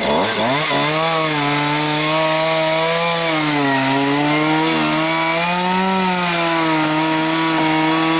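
Two-stroke chainsaw throttled up to a high whine and cutting into poplar wood. The pitch sags and recovers as the chain loads in the cut.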